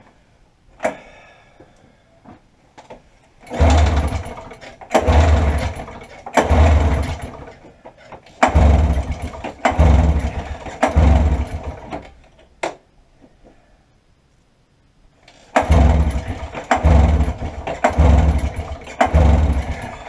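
1990 Arctic Cat Jag two-stroke snowmobile engine being cranked by its recoil pull starter, about ten pulls in three sets, each pull a second-long burst of chugging that dies away without the engine catching. The owner suspects bad gas.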